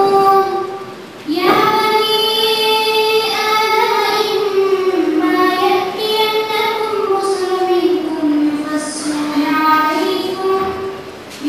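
A young female voice singing a slow melody in long, held notes, with a short pause for breath about a second in and another near the end.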